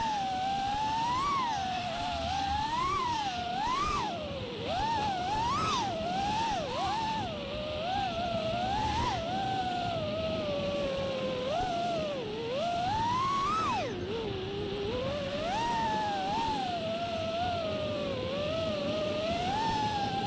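5-inch FPV freestyle quadcopter's brushless motors and propellers whining in flight. The pitch rises and falls continually, swooping up and down every second or so as the throttle is worked.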